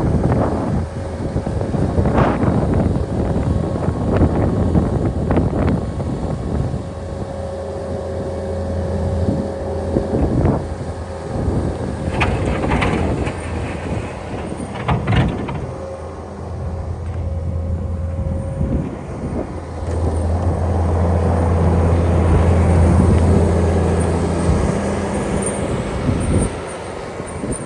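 Vehicle engine running with a steady low hum, getting louder for a few seconds in the latter half. Several sharp knocks and clanks come in the first half.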